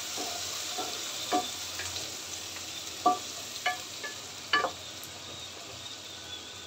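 Chopped onions sizzling in hot soybean oil in a pot while being fried toward brown, stirred with a wooden spatula. The spatula knocks against the pot a few times in the first two-thirds.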